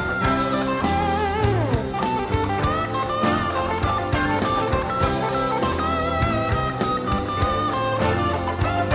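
Music with guitar, a steady beat and bass, in a blues or jazz style, including a sliding note that falls about a second and a half in.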